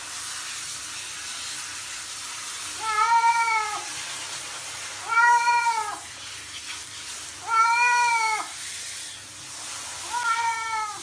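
A cat meowing four times, about every two and a half seconds; each meow is a drawn-out call that rises and then falls in pitch, over a faint steady hiss.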